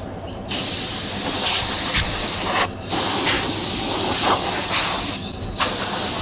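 Compressed-air blow gun hissing in three long blasts with short breaks between, blowing loose sand off the face of a green-sand mould.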